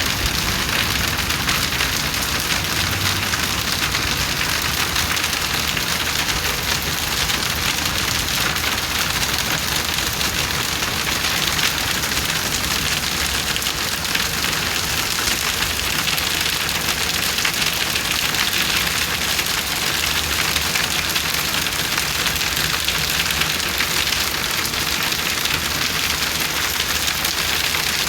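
Heavy rain pouring steadily, heard from shelter under a walkway, with dense pattering and splashing on hard surfaces.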